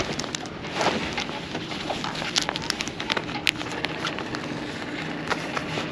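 Stiff sail-cover canvas rustling and crinkling as it is handled, with many small sharp clicks and scrapes.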